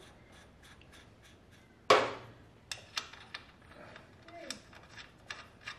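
Small metal clicks and taps as nuts are fitted by hand onto the bolts of a motorcycle's rear suspension linkage (dog bones), with one louder knock about two seconds in.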